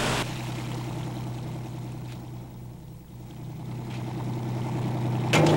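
A workboat's engine running with a steady low hum, easing off slightly midway and getting louder near the end.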